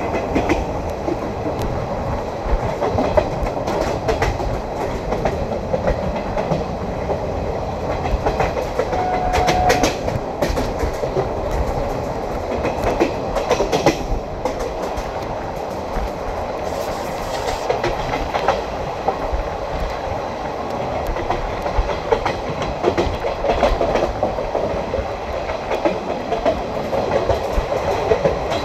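Wheels of an Indian Railways passenger coach running on the rails, heard from the open coach door: a steady rumble with clickety-clack over rail joints and points, the clicks bunching sharper around ten and fourteen seconds in. A brief steady tone sounds about nine seconds in.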